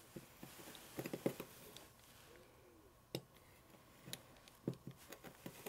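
Metal pizza wheel cutting rolled cookie dough on a wooden countertop: faint, scattered crunches and clicks as the blade goes through coarse bits of candi sugar in the dough.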